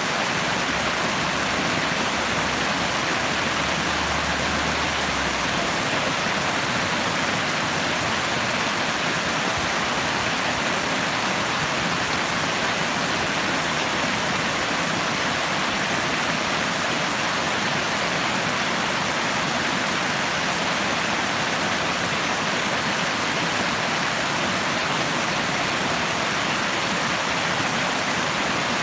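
Steady rushing water, an even unbroken noise like a waterfall or fast stream, with no change in level.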